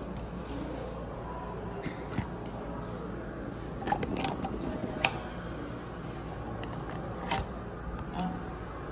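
Handling noise from a phone camera being carried and moved: a few scattered clicks and knocks over a steady low hum.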